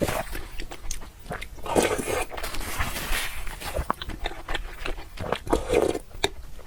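Close-miked chewing and wet mouth sounds of someone eating a mouthful of food, with small clicks at an irregular pace.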